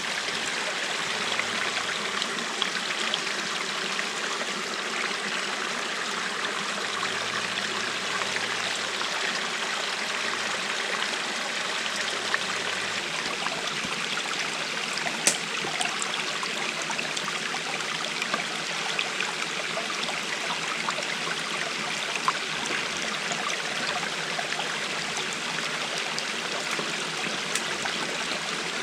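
Running water rushing steadily, the even roar of a stream or waterfall. A few sharp clicks stand out, the loudest about halfway through.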